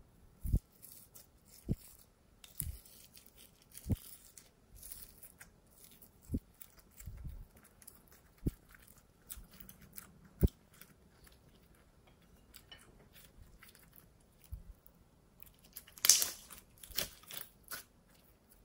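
Hands handling small plastic makeup pots and a ceramic dish of red glitter make sparse light knocks and clicks, with a stretch of rustling scraping a few seconds in. Near the end, glittery red glossy slime is stretched and squeezed in the fingers, with a louder run of crackly, squishy pops.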